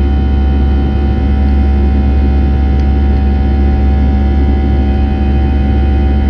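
Steady, loud cabin drone of an airliner climbing after takeoff: jet engine and airflow noise with a strong low hum and several steady tones, unchanging throughout.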